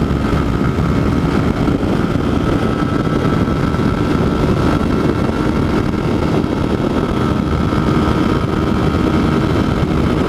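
Honda CG 160 Fan's single-cylinder four-stroke engine held at full throttle in top gear at about 122 km/h, a steady drone under heavy rushing wind noise.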